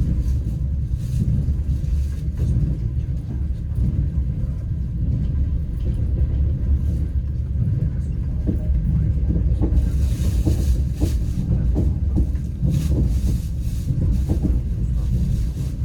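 Passenger train carriage heard from inside while running: a steady low rumble from the wheels and running gear, with a few short knocks of the wheels over rail joints in the second half.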